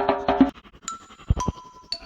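Background music: a busy percussive beat that stops about half a second in, followed by a few bell-like chime notes and two soft low thumps.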